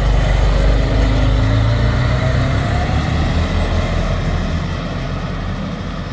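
Fire engine's diesel engine pulling away: a deep, loud rumble with a faint rise in pitch a couple of seconds in, fading a little as the truck moves off.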